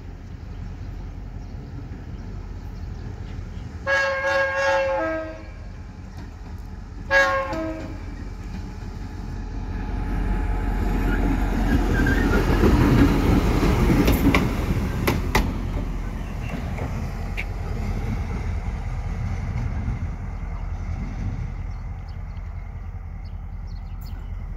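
Horn of an EMD GL18B diesel locomotive: a longer blast about four seconds in and a short one about three seconds later. The locomotive then passes close by, its diesel engine and wheels loudest a few seconds after the horn, with a few sharp wheel clicks over the rail joints, before the sound eases off.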